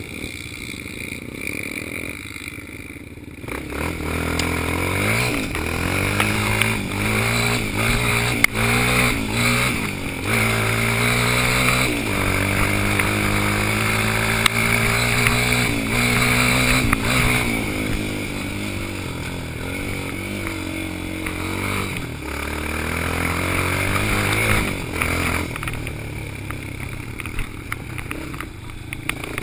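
Yamaha Raptor quad's single-cylinder four-stroke engine running quietly, then pulling away about three and a half seconds in and accelerating in steps through the gears, its pitch rising and falling, and easing off near the end.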